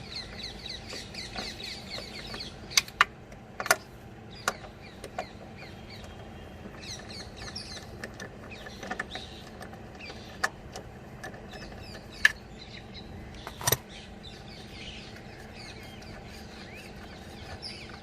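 Scattered sharp metal clicks and clinks of a hand tool working on the gearbox oil pan bolts of a BMW 320d, about seven in all with gaps between them.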